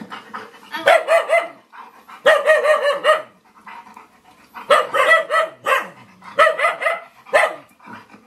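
Recorded dog barking played back: a small dog yapping in four quick bursts of rapid, high-pitched barks.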